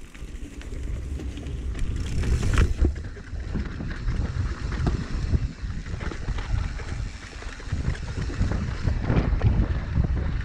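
Wind buffeting the microphone while a mountain bike rolls fast down a dirt trail, with tyre noise and frequent small knocks and rattles from the bike.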